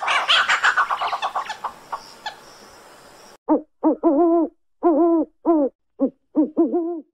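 Owl calling: a fast rattling run of notes that fades over about two seconds, then a series of short hoots, about ten, some in quick pairs.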